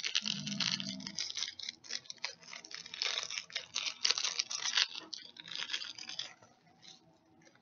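Packaging being opened and handled by hand: dense rustling, crinkling and tearing with small clicks that die down about six seconds in.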